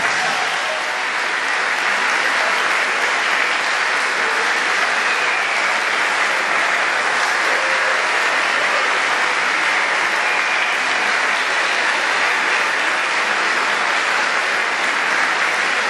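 Concert audience applauding, a dense, steady clapping that holds at the same strength throughout.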